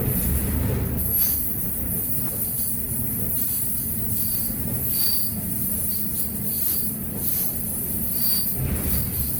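Moving freight train heard from aboard: a steady low rumble of wheels and cars on the rails, with a few metallic clanks and brief high-pitched wheel squeals.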